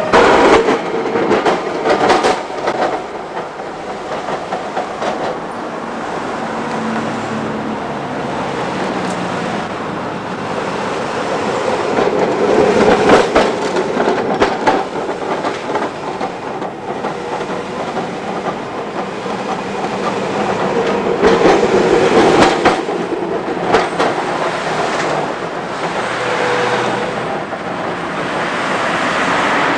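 Melbourne trams running past on street track, the wheels clicking and clattering over rail joints. The clatter is loudest about 13 and 22 seconds in.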